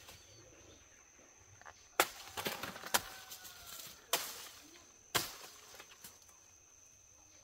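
Machete chopping into a banana plant's fibrous stalk: four sharp chops about a second apart, starting about two seconds in, with smaller knocks between the first two.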